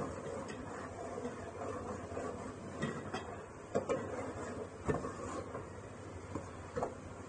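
Metal ladle stirring thick onion-tomato masala in an aluminium pot, knocking sharply against the pot several times in the middle seconds, over a steady low sizzle of the spiced masala frying.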